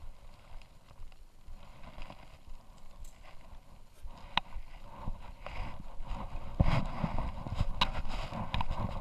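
Footsteps on dry, cracked mud, starting about halfway through and getting louder and closer together toward the end, over a steady low rumble.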